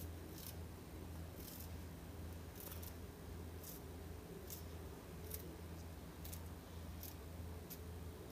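Scissors snipping taro (arbi) leaves into fine strips, a quiet snip about once a second, over a low steady hum.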